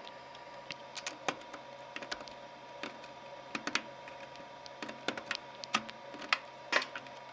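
Irregular clicks and ticks of hand tools and screws as the screws are taken out of the back of a top-load washing machine's control-panel cover, some in quick little clusters, over a faint steady hum.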